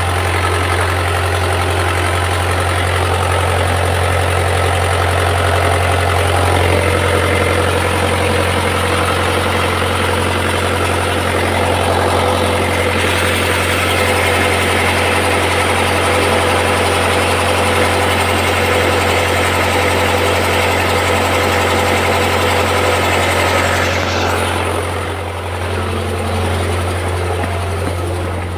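An engine running steadily at idle, with a strong low hum and a set of steady tones above it; the sound drops a little in level near the end.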